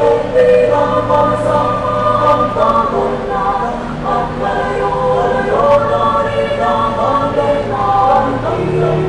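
Mixed-voice choir of men and women singing in several-part harmony, holding chords that change every second or so.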